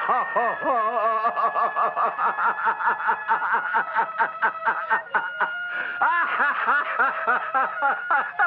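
A man laughing out loud in a long unbroken run of quick laughs, several a second, the pitch sliding up and down.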